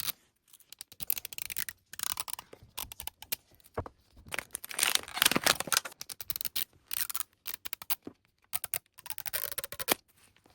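Hands unwrapping a plastic Mini Brands toy capsule: irregular scratching, tearing and crinkling of its wrapper, with small clicks of the plastic. It comes in uneven bursts with short pauses, busiest about halfway through.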